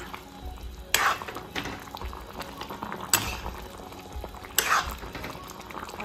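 Metal ladle stirring a pot of soup, scraping and knocking against the metal pan three times over a low bubbling of the broth.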